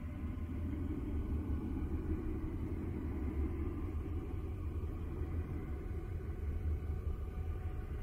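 Steady, deep ambient noise from a sleep-aid noise track, heavy in the bass with a softer hiss above it and faint steady high tones, unchanging throughout.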